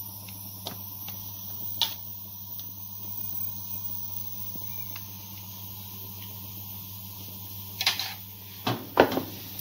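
Light clicks of a metal spatula against a plate while cream is spread over a layered cake, over a steady low hum. A few louder knocks and clatters come near the end.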